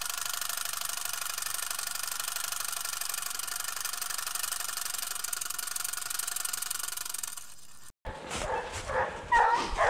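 A steady, even drone that cuts off suddenly about seven and a half seconds in. Then scent hounds bark and yelp loudly and irregularly.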